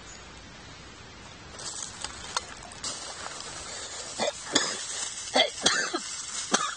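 Plastic bags rustling and crinkling as they are handled, starting about a second and a half in, with a run of sharp crackles in the second half.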